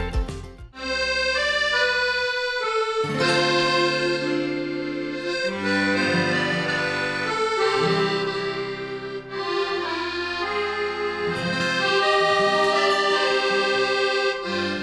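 Accordion music playing held chords under a melody, starting about a second in.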